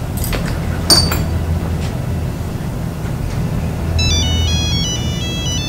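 A mobile phone ringtone starts about four seconds in: a quick melody of high beeping notes, over a steady low drone. A couple of sharp clicks sound about a second in.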